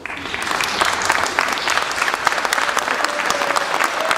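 A crowd applauding, many hands clapping at once; it starts abruptly and keeps up steadily.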